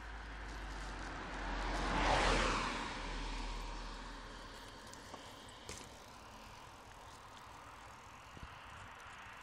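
A vehicle passing on the road: a rush of noise that swells to its loudest about two seconds in, then fades away over the next two seconds.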